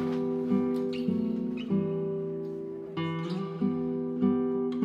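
Background music: acoustic guitar strumming sustained chords, with a new chord struck every half second to a second.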